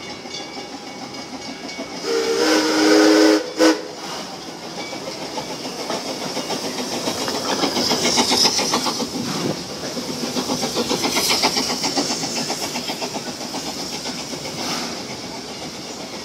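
Narrow-gauge steam locomotive sounding its chime whistle in one long blast about two seconds in, with a short toot right after. It then chuffs past with hissing steam, the exhaust beats loudest about eight seconds in and fading after.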